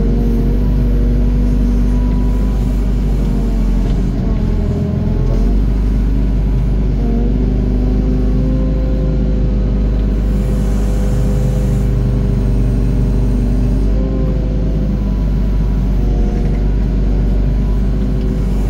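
Doosan DX55 mini excavator's diesel engine running steadily under work, its pitch wavering slightly up and down.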